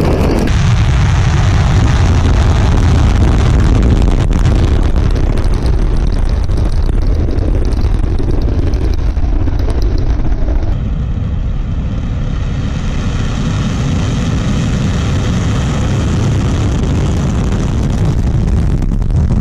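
Angara heavy-lift rocket's engines at liftoff: a loud, continuous low rumble with hiss. About halfway through it drops slightly and faint steady tones appear over it.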